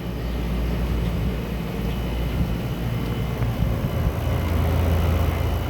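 Midea 5,000 BTU window air conditioner running: a steady low hum from the compressor and fan, with a faint steady high whine above it. The low hum grows a little stronger in the last second or two.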